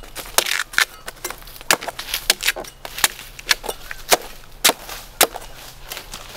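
A blade chopping repeatedly into coconut, sharp irregular strikes about two to three a second.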